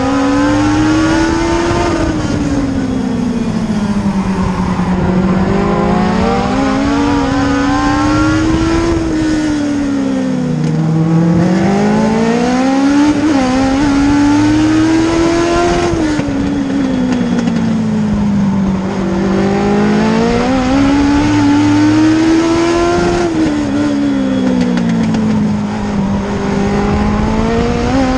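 Race car engine heard from inside the cockpit, running hard around a short oval. The engine note climbs along each straight and drops as the driver lifts for the turns, about once every seven seconds, four times over.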